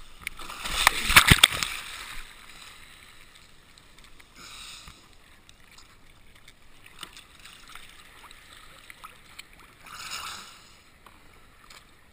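Water splashing against a stand-up paddleboard, with a loud burst of splashing about a second in, then lighter splashes near five and ten seconds in and scattered drips and clicks.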